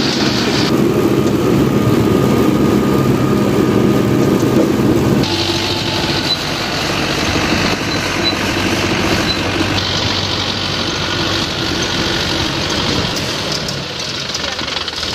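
Mahindra Yuvo 415 DI tractor's diesel engine running steadily. The sound shifts abruptly about five seconds in and again near ten seconds.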